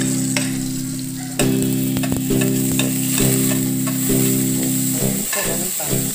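Hot pan sizzling steadily as sliced onion and green chilies are slid in from a plate with a spatula. Background music plays under it, held chords changing about once a second, turning to a plucked rhythm near the end.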